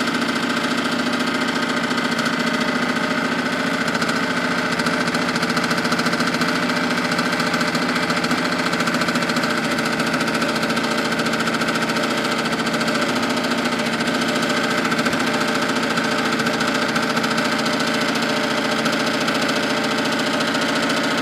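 12-volt electric gear pump running steadily while it primes, drawing old hydraulic fluid up its suction line before the fluid reaches the outlet.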